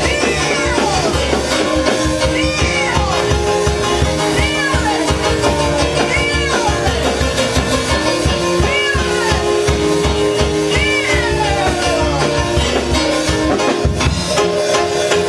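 Live church worship music: drums and bass under held chords, with a high sliding note that rises briefly and falls away about every two seconds.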